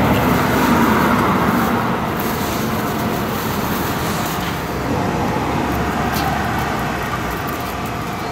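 Road traffic noise from vehicles on the street: a steady rumble and hiss of passing cars with a faint engine hum.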